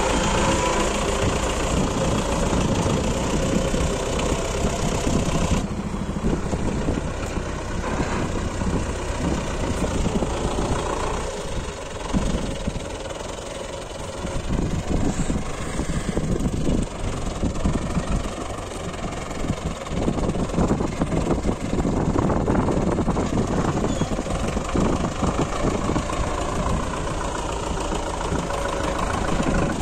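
Belarus 510 tractor's diesel engine running, steady and even at first, then rougher and less even, dipping and rising again as the tractor drives across the field.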